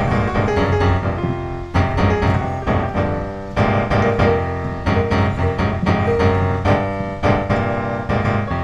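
Background piano music: a steady run of notes over a sustained low bass.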